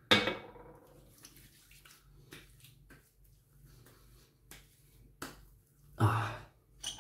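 Hands applying aftershave to freshly shaved skin: a sharp wet slap right at the start, a few light pats on the face and neck, and a second loud burst about six seconds in.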